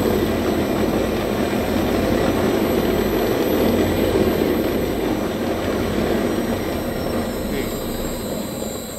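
Food processor running, its spinning blades chopping and mixing surimi fish paste into fish-ball dough with a steady whirring noise that eases off toward the end.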